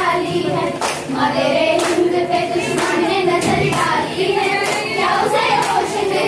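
A group of young girls singing together, clapping in time about once a second.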